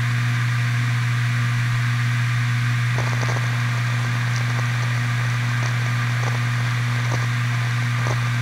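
Toshiba MK1002TSKB 1TB 7200 rpm 3.5-inch enterprise hard drive spinning with a steady low hum and hiss at idle. From about three seconds in, a few scattered faint head-seek clicks come in as light file access starts.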